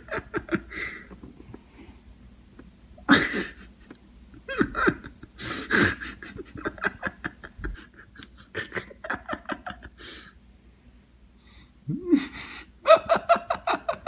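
A person laughing hard in breathy, panting bursts, several fits with short pauses between them.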